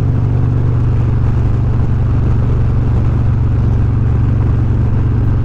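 Harley-Davidson Road Glide Special's V-twin engine running at a steady cruise, a constant low drone with road noise and no change in throttle.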